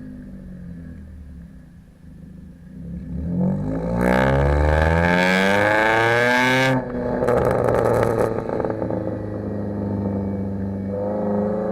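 2011 Kia Forte EX four-cylinder engine and exhaust revved up sharply about three seconds in and held at high rpm for about three seconds, then the throttle is dropped suddenly. The exhaust crackles and pops for about a second as the revs fall back, and the engine starts to rise again near the end.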